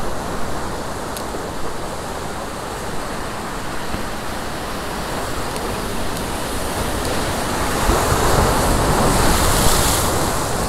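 Ocean surf surging and washing around coastal rocks, swelling louder about eight seconds in as a bigger wave washes through.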